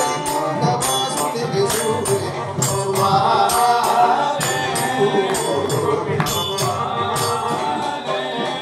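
Devotional bhajan music: a group of voices singing together over a jingling percussion beat, struck steadily about two to three times a second.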